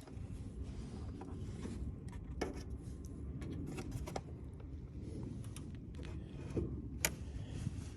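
A few scattered light clicks and scrapes from a plastic truck taillight assembly being handled, over a low steady rumble.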